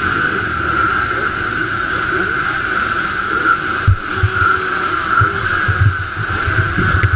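Engines of a line of motocross bikes running and revving together at the start gate, a dense steady engine din. Irregular low thumps come in from about four seconds in.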